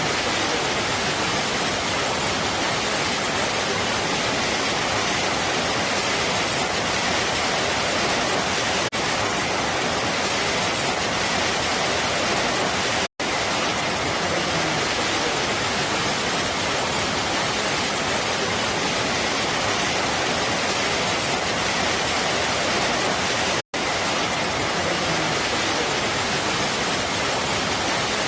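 Waterfall: a steady rush of falling water, broken twice by brief drop-outs to silence.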